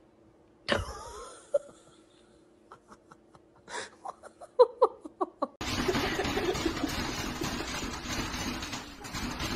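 A sudden thump about a second in, then a person laughing in a run of short bursts. A little past halfway, the sound cuts abruptly to a steady rushing noise.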